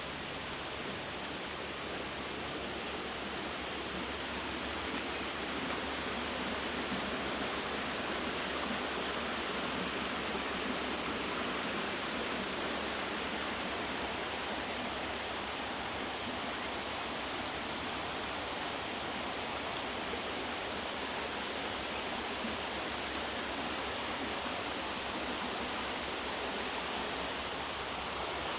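Steady rushing of flowing water, such as a small waterfall or stream, getting slightly louder.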